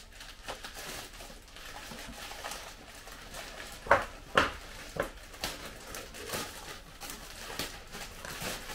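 A parcel's packaging being handled and opened by hand: scattered rustles and crackles, with two loud sharp noises close together about four seconds in and a few lighter ones after.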